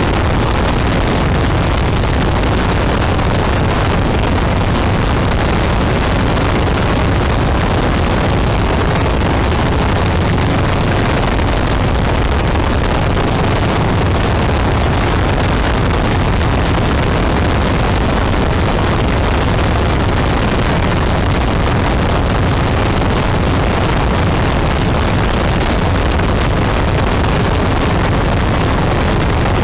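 Loud, steady, unbroken rushing noise with a low rumble underneath, unchanging in level and colour throughout.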